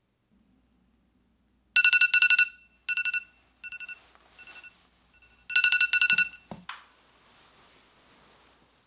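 iPhone alarm going off in groups of fast, high beeps: a loud group, several fainter ones, then loud again. It stops with a short thump a little over two-thirds of the way in, followed by a soft rustle.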